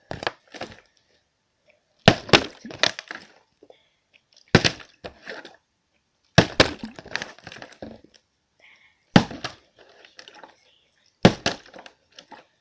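Plastic water bottle partly filled with water, flipped and landing five times, about every two seconds. Each landing is a hard clatter followed by a few quick bounces.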